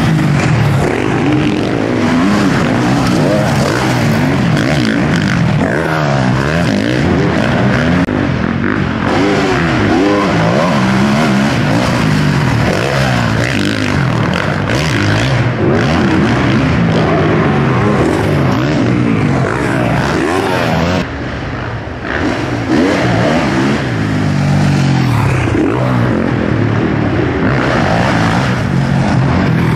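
Motocross bike engines revving hard, their notes rising and falling and overlapping as riders accelerate out of turns and over jumps, dipping briefly about two-thirds of the way through.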